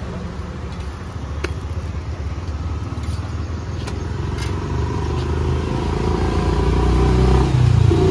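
Road traffic with a motor vehicle's engine rumbling, growing louder over the last few seconds as it comes close. A few sharp taps sound in the first half.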